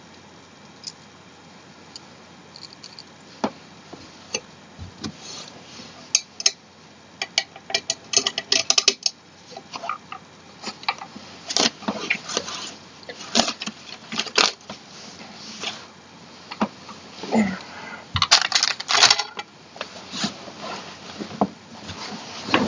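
Small metal hardware clinking and rattling during chair assembly: scattered sharp clicks and clatters, growing busier after a few seconds, with several quick clusters of rattling.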